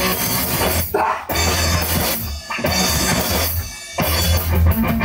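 A rock band playing live in the room: drum kit, distorted electric guitar and bass in a loud, fast punk number, with a few short stops where the band breaks together.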